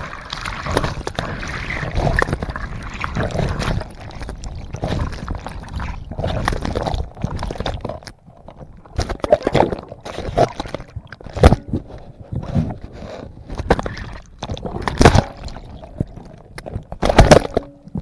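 Churning water and bubbles heard through a camera held underwater by a person going down a natural river waterslide. After about eight seconds the rushing gives way to a series of sharp knocks and sloshes against the camera.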